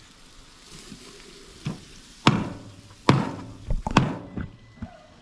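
Meat being chopped on a board: about half a dozen sharp, uneven chopping strikes, beginning about a second and a half in.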